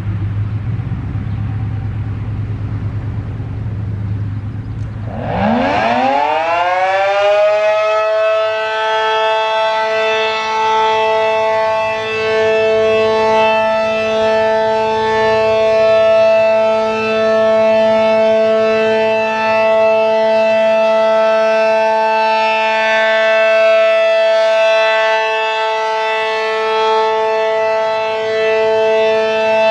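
ACA Allertor 125 civil defense siren with an 8/12-port Penetrator shroud winding up about five seconds in, its chord of tones rising fast and levelling off a few seconds later, then holding the steady full alert tone. Its loudness swells and eases gently as the rotating head turns. A low rumble comes before the wind-up.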